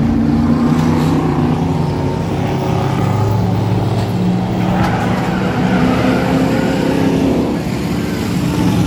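Several race car engines running together at speed, their pitches overlapping and drifting up and down as they rev.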